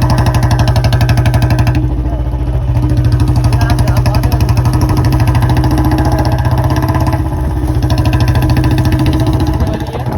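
Royal Enfield Bullet Classic 350's single-cylinder engine running through a narrow-mouth Long Panjab silencer, with a steady, rapid, even exhaust thump while the bike is ridden. The sound eases off slightly near the end.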